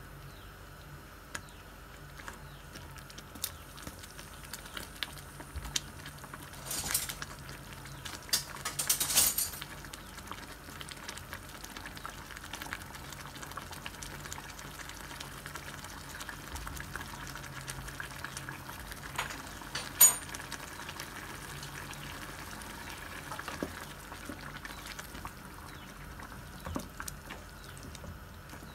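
Thick tomato sauce simmering in a pan, bubbling and popping softly, with a spoon stirring and scraping through it in two short louder spells early on. A single sharp knock comes about two-thirds through, over a steady low hum.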